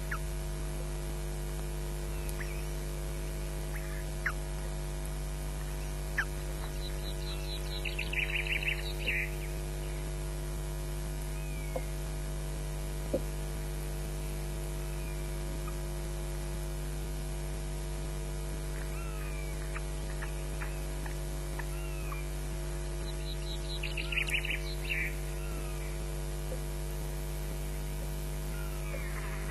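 Steady electrical mains hum on the nest camera's audio, broken twice, about 8 s in and again about 24 s in, by a short burst of rapid, high, repeated chirping calls from an osprey at the nest.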